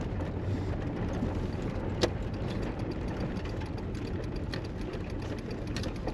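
Toyota motorhome driving over a rough, unpaved campground road: a steady engine and road rumble with a few sharp knocks or rattles from bumps.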